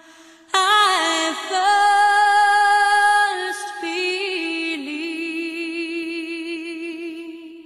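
Slow vocal music: a high voice comes in about half a second in and sings long held notes with vibrato over a steady low drone, fading away near the end.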